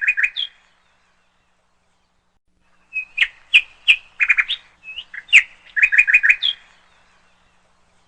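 A songbird singing: a brief burst of quick chirps at the start, then after a pause of about two seconds a longer phrase of rapid chirps and short whistles.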